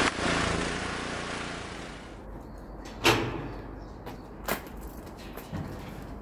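A dense rushing noise that cuts off abruptly about two seconds in, then the rattle and clanks of a large wheeled steel stair platform being pushed over tarmac, with a loud clank about three seconds in and smaller ones after.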